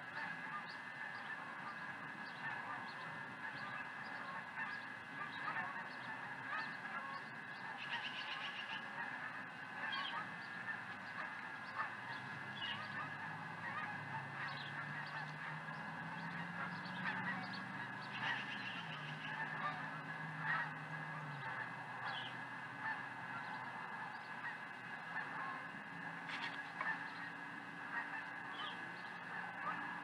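A flock of geese honking continuously, a dense clamour of overlapping calls. A low drone comes in partway through and fades out a few seconds later.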